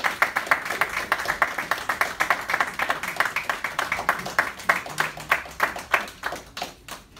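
A group of people applauding, many hands clapping to a fairly even beat, thinning out near the end.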